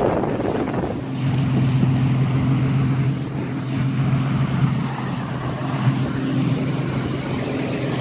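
Yamaha 150 hp OX66 two-stroke V6 outboard driving a 19-foot center-console boat under way. For about the first second, wind on the microphone and water rushing past the hull are loudest; after that the engine's steady drone is clearest, over the wash.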